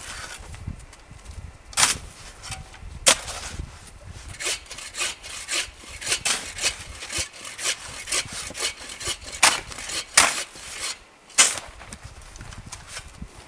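Hand saw cutting through a log in quick, irregular strokes, with a few louder, sharper strokes among them.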